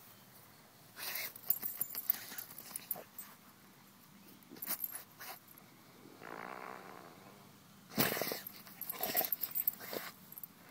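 A pit bull sniffing and snuffling with its nose pushed into the dirt and grass as it roots after a mole, in irregular short noisy bursts, the loudest about eight seconds in.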